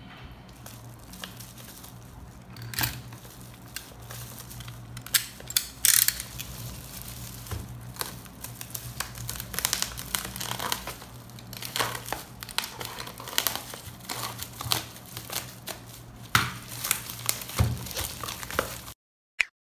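Plastic wrap and bubble wrap around a parcel crinkling and crackling as it is slit with a utility knife and pulled open by hand, in irregular sharp bursts over a low steady hum. The sound cuts off abruptly near the end.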